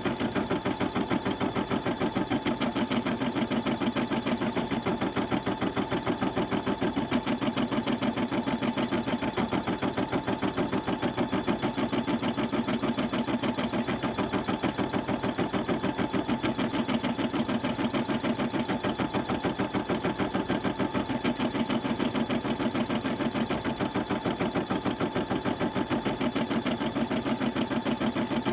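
Brother single-needle embroidery machine stitching out a design, its needle running in a fast, steady rhythm.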